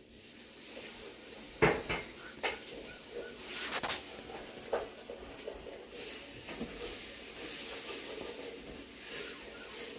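Serrated dough cutter knocking on a hard glass surface as a log of bread dough is cut into pieces, a few sharp taps in the first five seconds, then softer handling noise as the pieces are shaped.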